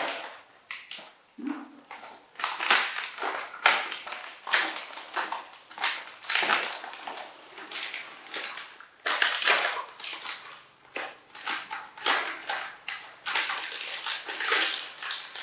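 Crinkly plastic snack packets rustling and crackling in quick, irregular crackles as they are handled and opened.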